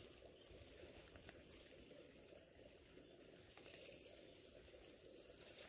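Near silence: a faint, steady high hiss with no distinct sounds.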